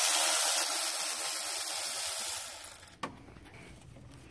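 Electric ratchet running for about three seconds as it spins out one of the E12 bolts holding the stock crankshaft damper, then cutting off abruptly, followed by a single click.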